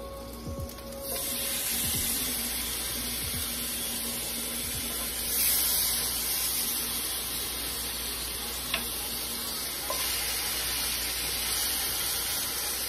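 Raw pork chops sizzling as they go into hot oil in a skillet. The sizzle starts about a second in and swells again around five seconds in as more chops are laid in.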